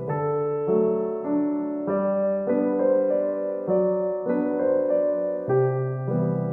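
Soft background piano music: a slow, gentle run of sustained notes over a low bass line.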